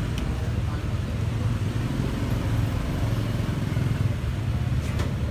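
Steady low engine rumble, like a motor vehicle running nearby, with a short click about five seconds in.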